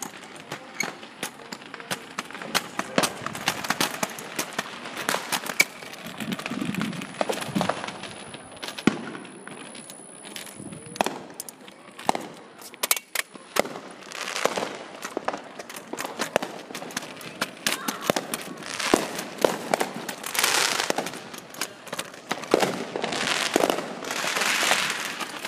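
Neighbourhood fireworks and firecrackers going off on all sides: many sharp pops and bangs throughout, with longer crackling stretches in the second half. A thin high steady whistle runs for several seconds about eight seconds in.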